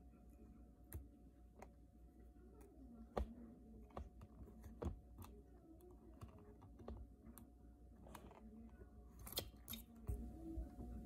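Faint, scattered small clicks and taps of fingers and small metal parts being handled on an iPhone 6s display assembly, with a quick cluster of louder clicks about nine seconds in.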